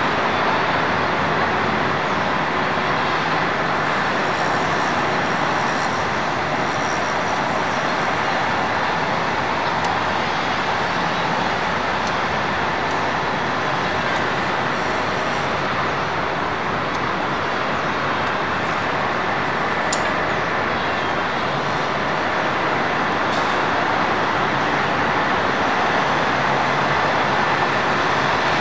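Concrete mixer trucks' diesel engines running steadily, a constant even drone with a single faint click about twenty seconds in.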